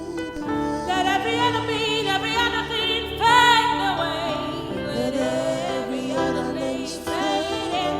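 Worship song: a solo voice singing with vibrato over sustained keyboard-like chords and a bass line.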